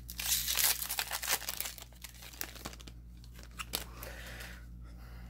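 Foil wrapper of a Magic: The Gathering Core 2021 collector booster pack torn open and crinkled, loudest over the first second and a half, followed by scattered light clicks.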